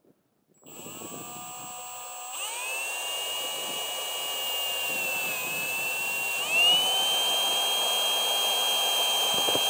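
Cordless drill motor running as it drives a screw through the gutter guard into the aluminium gutter; its whine starts a little under a second in, steps up in pitch about two and a half seconds in and again about six and a half seconds in, and grows louder.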